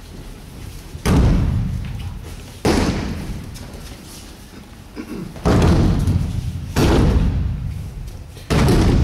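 Judoka thrown onto tatami mats, landing in breakfalls: five heavy thuds spaced one to three seconds apart, each ringing on in a large hall.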